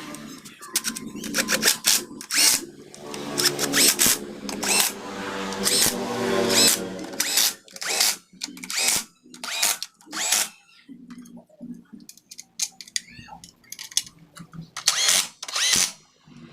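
Handheld power tool, like a drill or impact driver, run in many short bursts of a fraction of a second to about half a second each, with brief pauses between.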